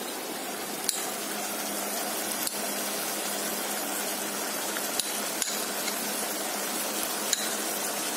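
Orange-peel and tamarind mixture sizzling steadily in a kadai while jaggery is added and stirred in. About five sharp clinks of metal utensils striking the pan.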